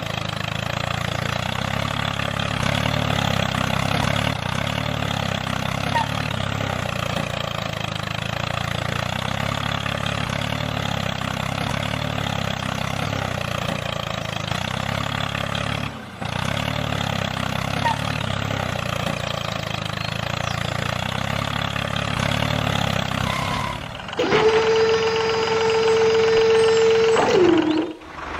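Tractor engine running steadily with an even, low chug, breaking off for a moment about 16 seconds in. About 24 seconds in it gives way to a louder steady high tone that lasts about three seconds and drops in pitch as it stops.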